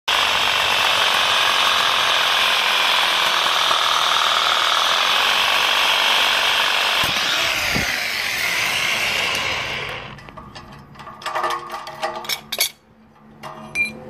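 Handheld power saw cutting through the brass flange of a cast iron radiator's valve fitting, a loud steady harsh run that winds down and stops between eight and ten seconds in. Then a few scattered metal clinks and knocks as the cut flange pieces come away.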